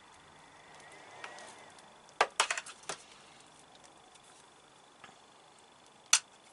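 A quick run of sharp metallic clicks and clinks about two seconds in, then a single sharp click near the end: small hand tools and wire fittings being handled while wiring an inverter.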